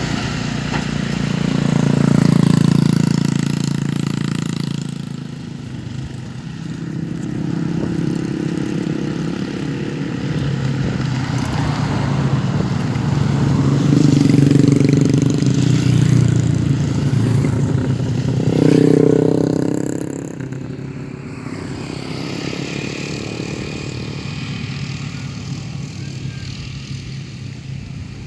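Motorcycle engine running, its pitch rising and falling with the throttle, with louder revs about two seconds in, around the middle and about two-thirds of the way through.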